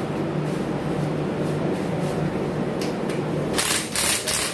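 Steady low hum of refrigeration plant machinery running. About three and a half seconds in, a quick run of loud, noisy bursts comes in over it.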